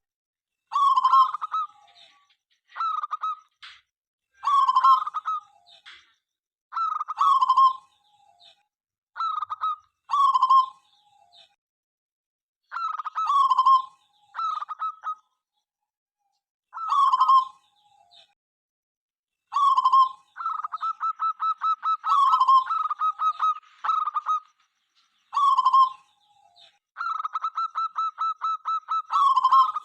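Zebra dove (perkutut) cooing, with short phrases repeated about every two seconds. From about two-thirds of the way in, fast runs of rapid staccato notes fill the gaps between phrases.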